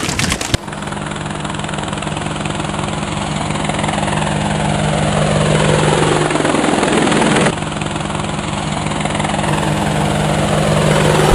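Quadcopter drone rotors whirring: a steady hum of several pitches, with a whoosh that falls in pitch from about four seconds in and cuts off sharply at seven and a half seconds, leaving the steady hum.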